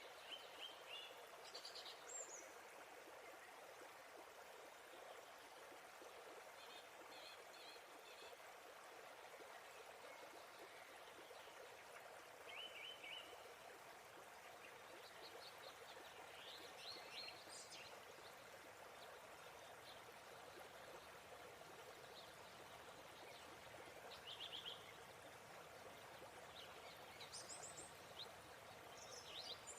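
Faint, steady rush of a waterfall, with small birds chirping in short high bursts every few seconds.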